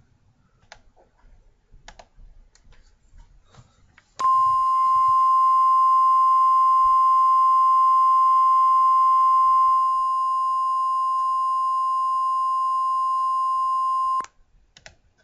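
Faint scattered clicks, then an emergency alert attention tone: one steady high beep near 1050 Hz, held for about ten seconds. It drops a little in level about ten seconds in, then cuts off suddenly.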